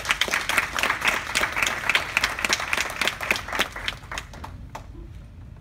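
Audience applauding, with dense clapping for the first few seconds that thins to scattered claps and dies away about five seconds in.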